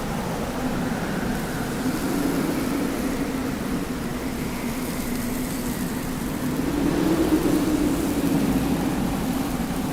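Desert wind blowing steadily, with a low howl that wavers in pitch and swells about seven seconds in.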